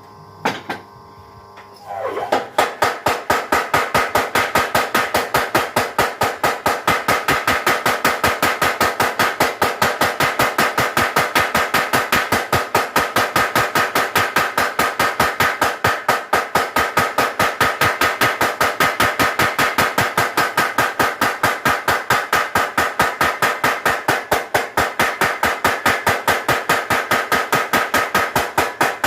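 Mechanical power hammer forging a thick bar of leaf-spring steel, striking in fast, even blows, about five a second, with a metallic ring. A few single knocks come first, and the steady run of blows starts about two seconds in.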